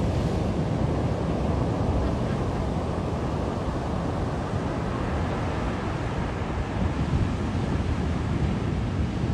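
Ocean surf washing onto a beach, a steady rush of waves, with wind buffeting the microphone.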